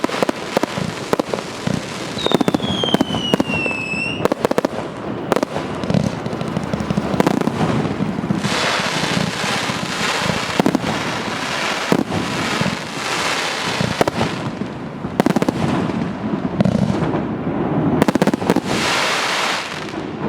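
A 288-shot firework battery (cake) firing a rapid, continuous barrage of launches and bursts, with stretches of denser crackling hiss. A single whistling shell falls in pitch about two to four seconds in.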